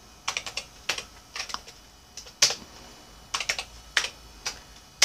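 Typing on a computer keyboard, entering short commands at a DOS prompt: irregular keystrokes in small runs, with a louder stroke about two and a half seconds in and another at the end.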